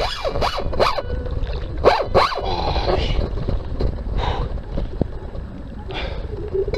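A handful of short, loud vocal cries or barks, bending in pitch, over a steady low rumble.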